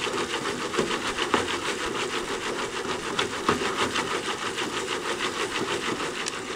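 A Jiffy Pop foil pan being shaken back and forth over a camp-stove burner, rattling on the wire grate about four to five times a second. The butter and unpopped kernels are swishing inside, with no popping yet.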